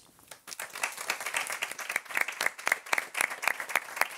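Audience applauding, many people clapping at once; the applause starts about half a second in and carries on steadily.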